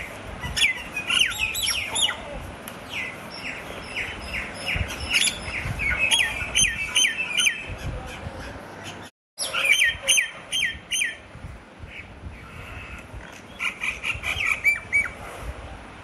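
Laysan albatrosses calling during their courtship dance: runs of short, squawking notes, several a second, coming in bursts with a brief break about nine seconds in.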